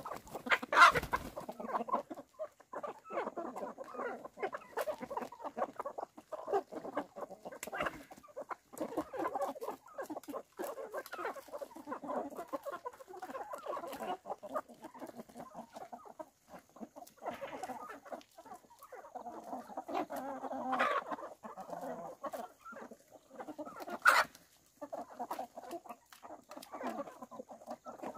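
A flock of chickens and roosters clucking continuously as they feed. There are a couple of sharp knocks; the loudest comes about a second in.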